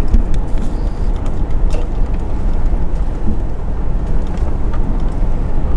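1998 Toyota Land Cruiser 100 series driving: a steady low rumble of engine and road noise.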